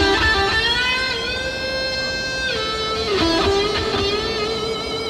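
Music: electric guitar holding long notes that slide slowly in pitch.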